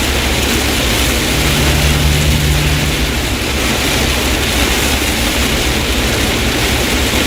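Heavy rain on a moving car and its tyres on a water-covered road, heard inside the cabin: a loud, even wash of noise over a low road rumble. A low hum rises for about two seconds near the start.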